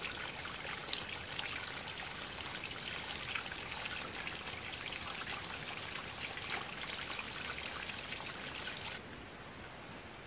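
Water trickling and splashing steadily with many small drips, cutting off abruptly near the end to a fainter background.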